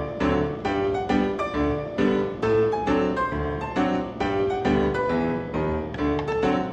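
Background instrumental music: a steady, evenly paced run of struck notes over a low bass.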